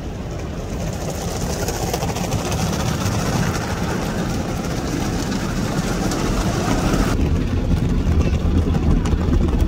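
Automatic car wash heard from inside the car: water spray and spinning cloth brushes sweeping over the windshield, a steady rushing wash that slowly grows louder. About seven seconds in the hiss eases and a low rumble of the machinery comes up.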